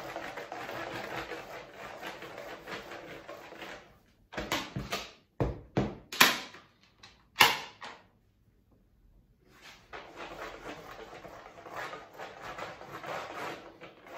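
Household objects handled during cleaning: a steady rough scraping noise that stops about four seconds in, then several loud knocks and bangs over the next few seconds, a short silence, and the rough noise starting again.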